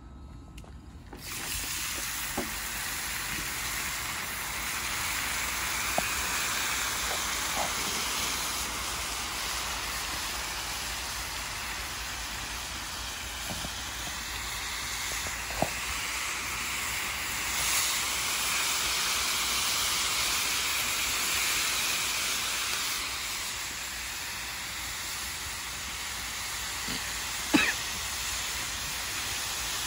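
Peppers, onions and chicken sizzling in hot oil on a wide round steel griddle, the sizzle starting suddenly about a second in as the food goes onto the griddle. A few sharp clicks of a metal spatula against the steel, the loudest near the end.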